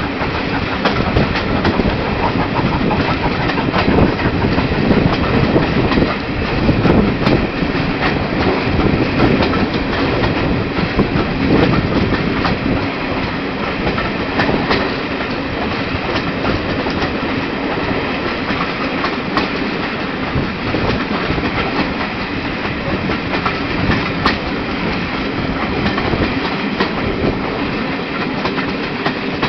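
Carriages of a steam-hauled passenger train running along, wheels clickety-clacking over the rail joints, heard loud from an open carriage window. The sound eases slightly after the middle.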